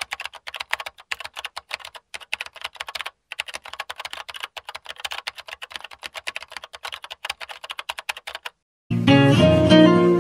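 Rapid computer keyboard typing: a dense run of light key clicks, broken by two short pauses about two and three seconds in. Near the end the typing stops and loud plucked guitar music starts.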